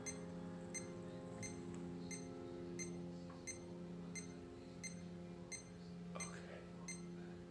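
Yamaha grand piano's last chord held and slowly dying away, over faint, even electronic ticks about every 0.7 seconds. A brief soft rustle about six seconds in.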